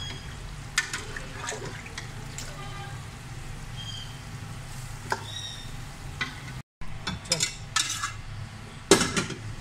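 Fried masala sizzling in an aluminium pot as boiled beef trotters and their cooking liquid are tipped in, with scattered sharp clinks and knocks of the spoon and bones against the pot. The loudest knock comes near the end.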